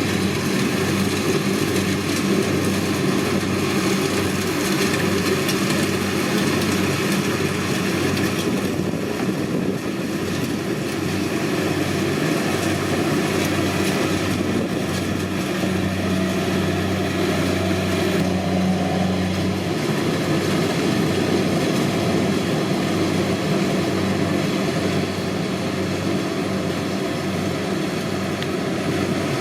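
Kubota DC-70 combine harvester's diesel engine and machinery running steadily. Its hum grows stronger for a few seconds a little past halfway, then drops back.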